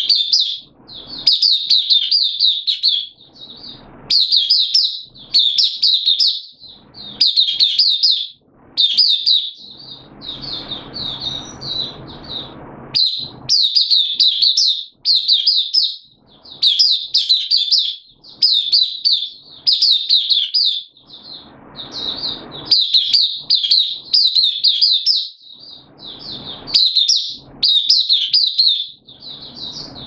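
Caged white-eye singing without pause: rapid, high warbling phrases of about a second each, one after another with brief gaps.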